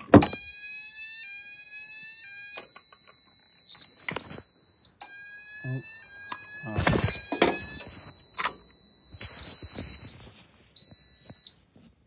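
Fire alarm sounder on a conventional fire panel in test mode, sounding a continuous high-pitched tone for about ten seconds, then cutting to short beeps near the end. Knocks and handling clatter come over it.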